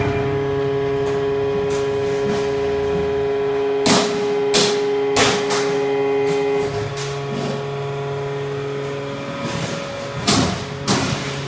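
HS M1600 hydraulic metal baler running through its baling cycle: a steady pump hum with sharp metal clanks and crashes, three about four to five seconds in and more near the end.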